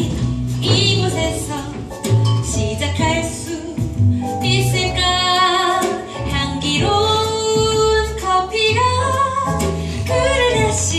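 A woman singing a musical-theatre song with piano accompaniment.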